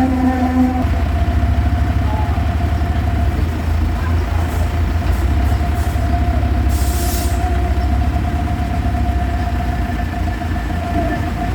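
Diesel engine of a 2YJ8/10 tandem road roller running steadily with a low rumble and a steady whine above it. A brief hiss comes about seven seconds in.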